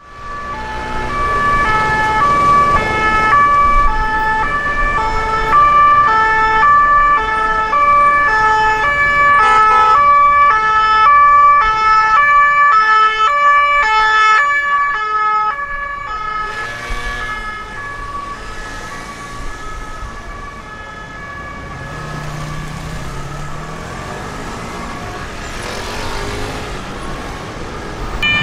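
Classic French two-tone police siren stepping back and forth between two pitches, about twice a second. Around the middle a second siren joins, out of step with the first. After about 16 seconds the siren fades out, leaving city traffic noise with a vehicle engine revving.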